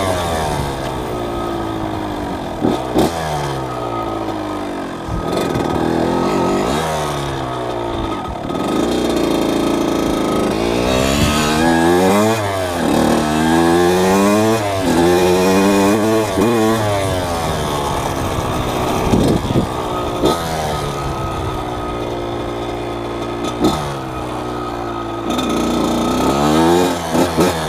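1998 Kawasaki KX80 two-stroke single-cylinder dirt-bike engine revving up and dropping back again and again as the bike accelerates through the gears and the throttle is eased off, its pitch climbing in a series of rising sweeps.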